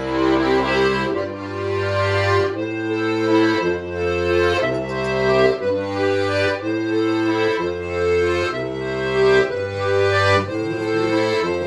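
Steirische harmonika (diatonic button accordion) playing a lively traditional Alpine tune, with a steady beat of stepping bass notes under chords and melody.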